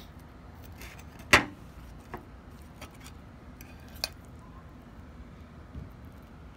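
Metal fork clinking against a ceramic plate while picking at baked eggplant: one sharp clink about a second in, then a few lighter taps.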